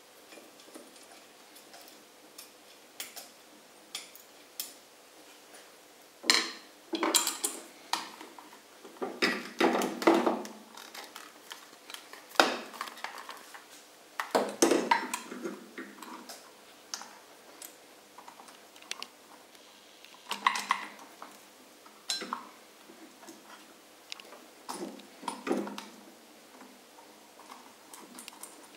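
Small metal parts clinking, scraping and knocking as a sewing-machine motor's mounting bracket and bolt are handled and fitted to the machine: scattered clicks, with a few louder clusters of clatter spread through.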